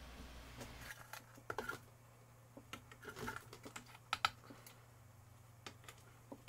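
Light plastic clicks and taps as the moulded plastic cover of a lithium-ion battery pack is handled and lowered over the open case to test-fit it. The clicks are scattered and irregular, the loudest a close pair about four seconds in.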